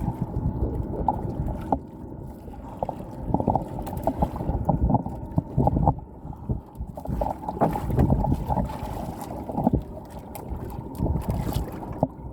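Wind rumbling on the microphone by the sea, with irregular short knocks and bumps throughout.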